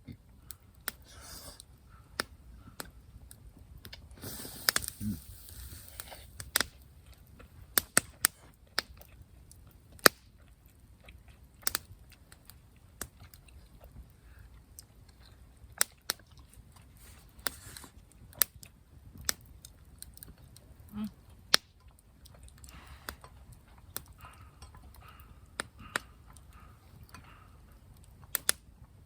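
Burning firewood crackling: sharp, irregular pops every second or two, with a brief rustle about four seconds in.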